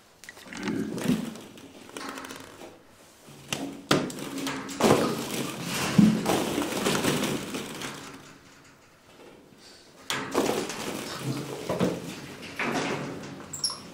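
Plastic ball-pit balls clattering and rustling in irregular bursts as a person flops and thrashes through a pit full of them, with a few sharp knocks.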